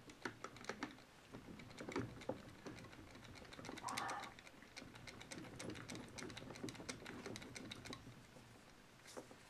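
Faint, irregular small clicks and taps of aluminium parts as the unbolted axle housing of a quarter-scale RC monster truck is worked apart by hand, its two halves starting to separate.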